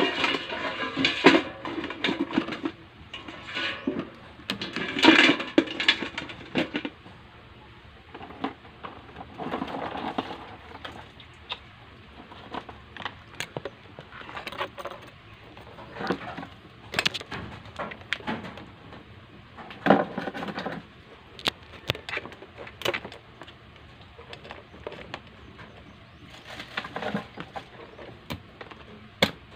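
Handling noises of a live spiny lobster on a plastic cutting board: irregular clicks, knocks and scrapes of the hard shell and legs against the board and hands, busiest in the first few seconds and in short flurries later.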